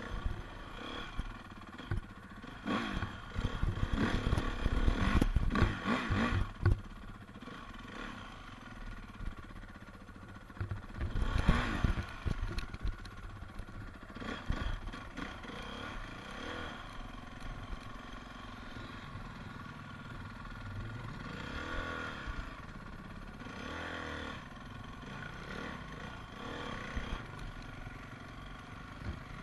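Honda CRF single-cylinder four-stroke dirt bike engine ridden slowly over rough ground, revved hard in bursts a few seconds in and again about halfway through, then running at low revs with small rises and falls in pitch.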